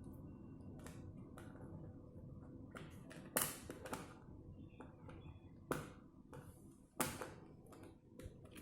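Light clicks and taps of a small screwdriver and fingers working screws out of a tablet's core board, with three louder clicks at irregular intervals over a faint low hum.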